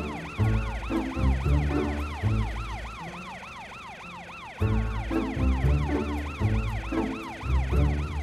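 Emergency vehicle siren from the arriving cartoon police car and fire truck, a fast yelp of about three rising-and-falling sweeps a second. Background music with a bass beat plays under it and thins out for a moment near the middle.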